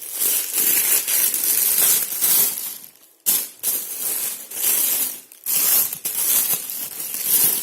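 Paper and plastic packaging rustling and crinkling as a box is opened by hand, in three long stretches with short pauses about three and five seconds in.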